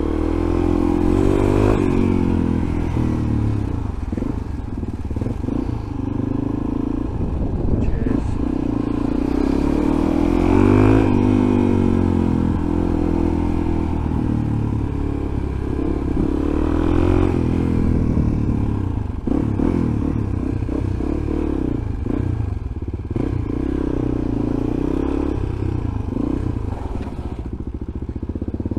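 Suzuki DR-Z400E supermoto's single-cylinder four-stroke engine, heard from the rider's helmet, under way and rising and falling in pitch as it is revved through the gears. It settles lower and steadier near the end as the bike slows.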